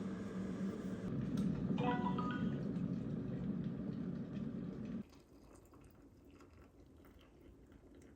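Kitchen appliance running with a steady hum. A short rising electronic chime plays about two seconds in, and the hum cuts off abruptly about five seconds in.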